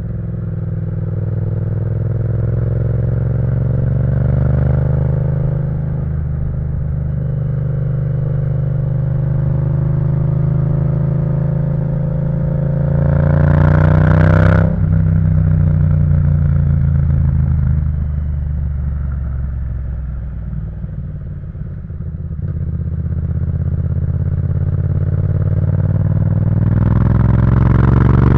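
Yamaha MT-07's parallel-twin engine through an Akrapovic full exhaust system, under way and pulling hard, its revs climbing again and again. About halfway the revs drop suddenly as the throttle closes, then they rise once more near the end.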